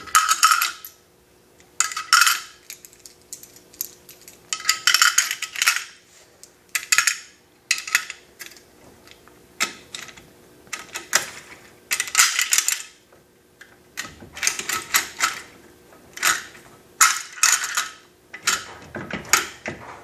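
Hand-cranked RPD belt loader being fed: 7.62×39 mm cartridges clatter into its steel hopper and are cranked through the sprockets into a steel belt. About a dozen short bursts of metallic clinking and rattling come every second or two, with brief quiet gaps between them.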